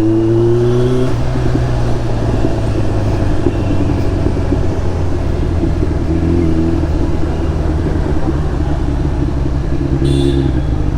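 Kawasaki Z900's inline-four engine through an SC Project slip-on exhaust while riding: the engine note rises for about the first second, then holds at a steady cruise.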